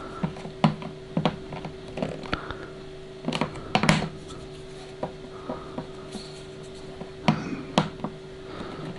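Scattered clicks and light knocks as a handheld film densitometer is pressed down onto a printed film step wedge on a light table, reading the density of each tone patch. A steady low hum runs underneath.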